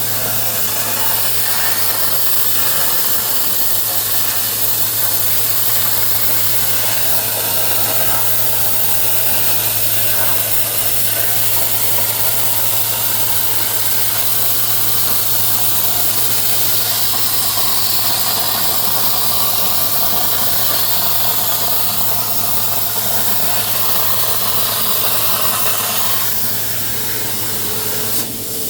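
CNC plasma torch cutting 11 gauge steel plate: a steady, loud hiss, with the low hum of the downdraft table's fan underneath, easing off slightly near the end.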